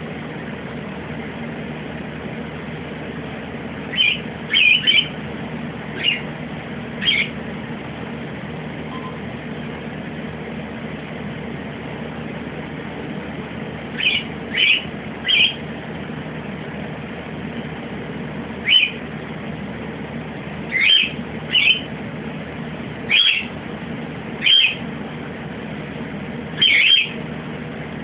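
A pet's short, high, bird-like chirps, singly or in quick twos and threes, coming every second to few seconds, over a steady low background hum.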